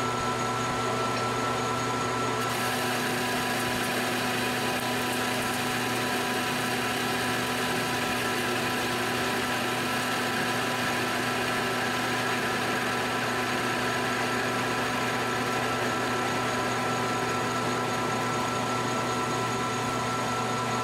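Metal lathe running with a steady motor and gear hum while an indexable-insert tool takes a facing cut across the end of a 1144 Stressproof steel bar. A steady cutting hiss joins the hum about two and a half seconds in as the tool bites into the steel.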